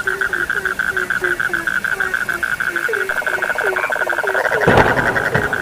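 A chorus of several frogs calling together. One keeps up a fast, steady pulsing trill, another repeats short croaks about three times a second, and a third trill joins briefly past the middle. A single sharp knock sounds near the end.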